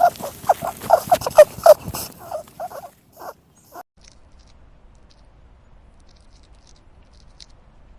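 An animal giving a rapid run of short, high-pitched squeaking calls, about five a second. The calls thin out and stop about four seconds in, leaving only a faint low hum with a few small clicks.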